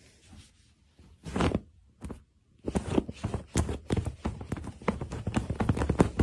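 Footsteps: a few scattered taps, then a rapid, irregular patter from about two and a half seconds in.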